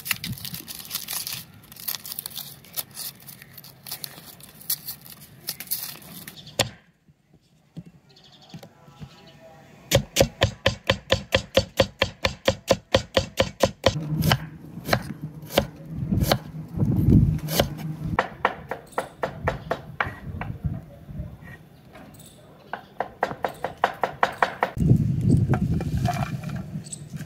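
A knife chopping food on a cutting board in quick, even strokes of about five a second, with looser clicking before a short pause and some low background hum later.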